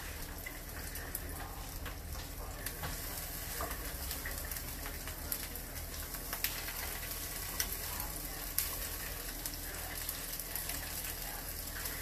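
Salmon fillets sizzling in hot oil in a nonstick pan, a steady sizzle with scattered small crackles that grows a little louder as more fillets go in.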